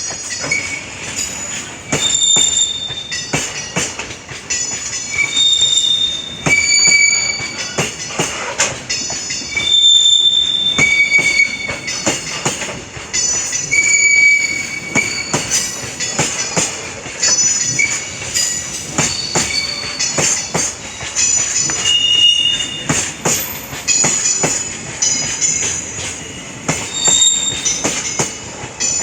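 Freight train wagons rolling past, their wheels giving off many short, high-pitched squeals, over a steady run of clacks from the wheels and rails.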